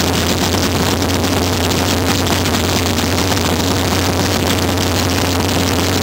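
Rear-engine dragster's engine idling loudly and steadily at the starting line.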